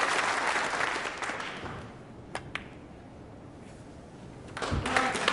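Crowd applause at a snooker match dies away. Then come two sharp clicks of a shot, the cue tip striking the cue ball and the cue ball striking an object ball. About four and a half seconds in, the applause breaks out again.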